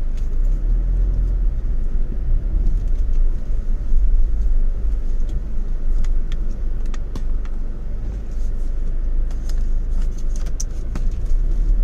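Car driving slowly along a rough, unpaved track, heard from inside the cabin: a steady low road rumble with scattered clicks and knocks, more of them in the second half.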